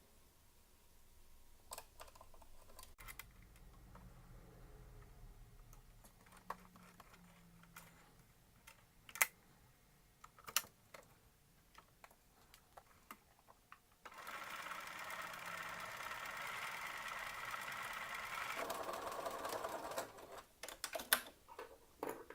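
Sewing machine stitching steadily for about six seconds, with its bobbin loaded backwards so it spins counterclockwise instead of clockwise. Scattered sharp clicks come before and after the run.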